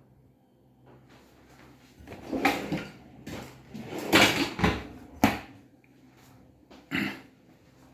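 Aluminium kitchen cabinet doors and drawers being opened and shut. A run of sliding and knocking sounds starts about two seconds in, a sharp knock comes about five seconds in, and a shorter one comes near the end.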